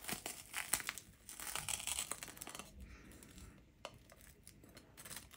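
A knife cutting through the crisp air-fried crust of a taiyaki on a plate, crackling and crunching over the first couple of seconds, then a few scattered clicks.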